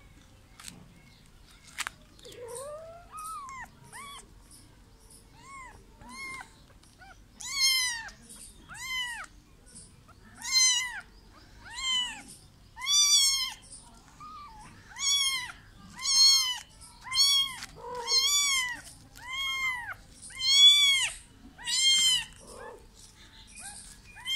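Kitten meowing over and over in short, high, arching mews, faint at first and much louder from about seven seconds in, about one a second.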